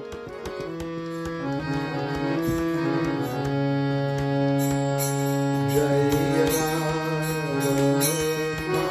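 Hand-pumped harmonium played with held chords over a low sustained drone, the notes changing step by step; light clicks run through the playing.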